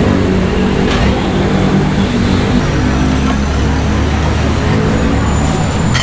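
Street traffic: vehicle engines running close by, with a steady low rumble that is heaviest in the middle. A couple of short clicks come through over it.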